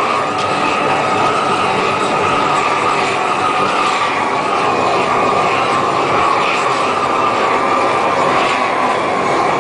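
Propane roofing torch burning steadily, loud and even, as it heats the underside of a bitumen torch-down membrane to melt it onto the layer below.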